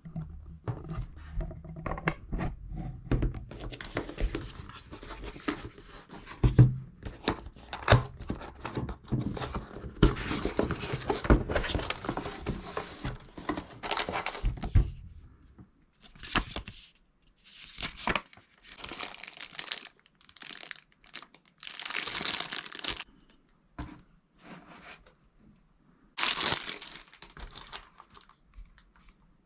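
Packaging crinkling and tearing as it is handled, with many small knocks and clicks. It is busy and nearly continuous for the first half, then comes in separate bursts with short pauses between them.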